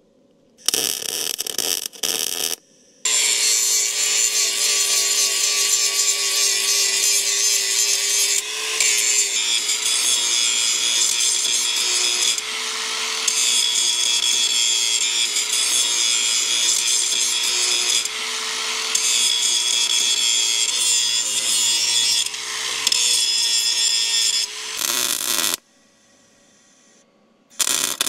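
MIG welder arc crackling and hissing on a quarter-inch steel truck frame rail. Two short tacks come about a second in, then a long continuous bead of roughly twenty seconds with a few brief pauses, and one more short burst near the end.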